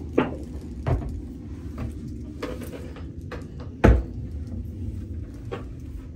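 Wooden wardrobe doors being handled, opened and pushed shut: several knocks and clunks, the loudest about four seconds in.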